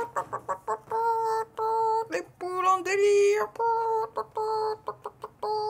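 A child's voice singing a wordless tune: long held notes, mostly on one pitch with a lower one in the middle, between runs of short quick syllables.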